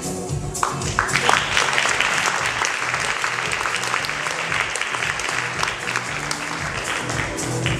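Audience applauding, the clapping starting about a second in and dying away near the end, over background music with a steady beat.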